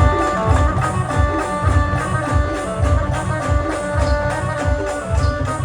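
Maharashtrian wedding-style brass band playing a pavri rhythm: held melody notes over a steady low drum beat of about two to three hits a second.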